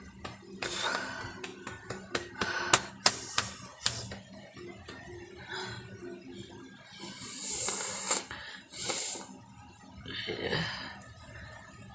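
A person's noisy breaths or sniffs through the nose: three hissing breaths in the second half, with a few sharp clicks and taps a few seconds in. The nose is irritated by red chili powder smeared around it.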